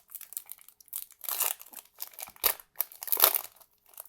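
Crinkling of a trading-card pack wrapper handled in the hands: a run of irregular crackles, loudest in clusters in the middle and near the end.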